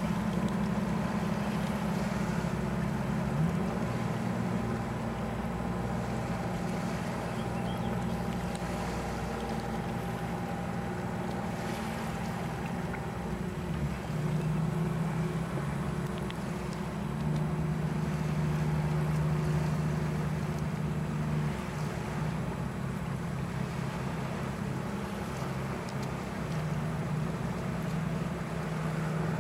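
An engine running steadily. Its low hum shifts up and down in pitch several times, with a steady rushing noise underneath.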